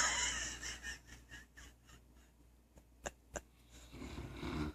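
Neapolitan Mastiff snoring in deep sleep: a loud snore fades out over the first second, and another rasping snore builds near the end. Two short clicks come about three seconds in.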